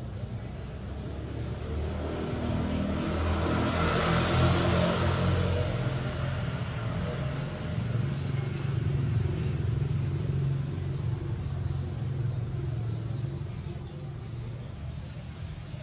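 A motor vehicle's engine rumbling as it passes, swelling a couple of seconds in, loudest about four seconds in, then fading away near the end. Crickets chirp faintly underneath.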